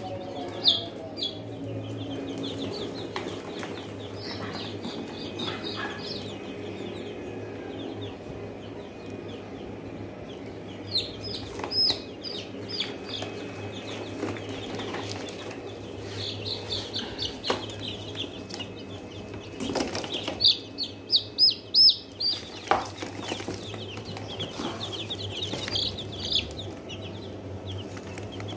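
Young chicks peeping in runs of short, high cheeps, busiest near the middle and about two-thirds of the way through, over a steady low hum.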